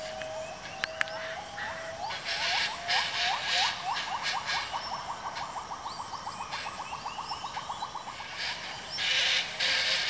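Rainforest animal calling: a held whistled note breaks into a fast run of short rising chirps that fades out. Bursts of high hissing buzz come and go over it, loudest near the end.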